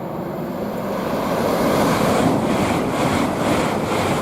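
LNER Class 801 Azuma electric train passing through at speed: a loud rushing of wheels and air that builds over the first couple of seconds, then pulses evenly about two to three times a second as the coaches go by, with wind on the microphone.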